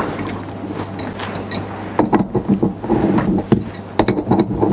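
Metal clinking and clicking of an adjustable wrench and chrome fittings as a feed water adapter is tightened onto a sink's inlet valve, a series of short sharp clicks over a steady low hum.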